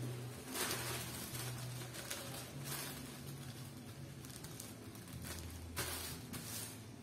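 Tissue paper rustling and crinkling as hands fold and press a glued seam, in a few short bursts, the strongest about a second in and again near the end. A low steady hum runs underneath.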